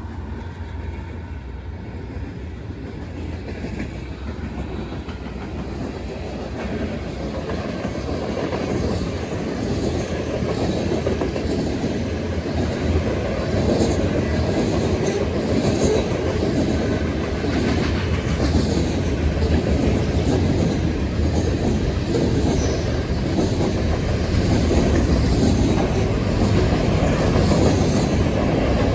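Diesel-hauled freight train rolling past, its wheels clacking over the rails, growing steadily louder as it comes closer.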